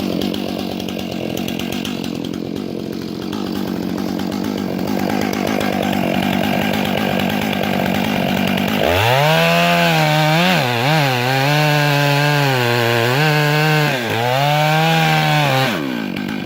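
Two-stroke chainsaw cutting the back cut on a large hemlock. It runs steadily at first; about nine seconds in it revs high for about seven seconds, the pitch dipping and recovering as the chain bites under load, then drops off near the end.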